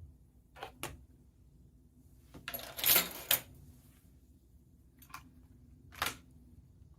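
Keystrokes on a budget prebuilt 96% mechanical keyboard (Xinmeng X98): two clicks, then a quick, loud flurry of keys about three seconds in, then two more single clicks.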